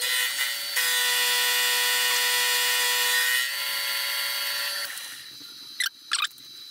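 Milling machine's indexable face mill cutting a steel plate held in a vice, giving a steady high ringing whine of several pitches. The cut gets quieter about three and a half seconds in and dies away by about five seconds, followed by two short clicks.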